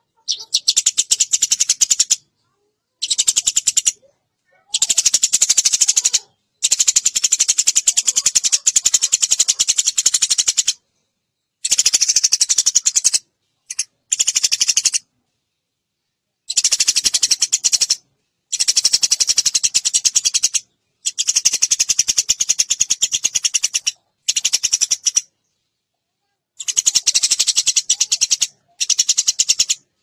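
Eurasian tree sparrow chirping in fast, dense chattering bouts of one to four seconds, each stopping abruptly with short silences between.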